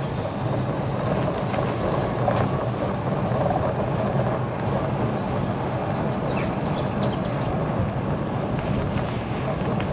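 Steady rumbling road and wind noise from riding a bicycle: tyres rolling on tarmac, with wind buffeting the microphone.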